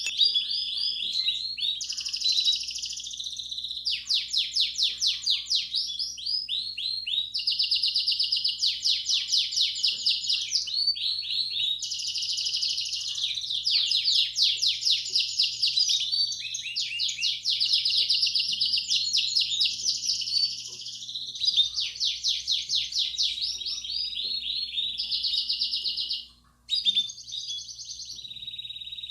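Belgian canary singing a continuous bell-type (campainha) song: fast trills and rolls, one phrase running straight into the next. The song breaks off for an instant near the end, then resumes.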